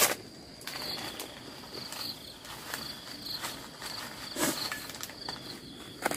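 Insect chirping in short, high-pitched pulses repeated over and over, with a few sharp clicks and knocks; the loudest comes right at the start and another about four and a half seconds in.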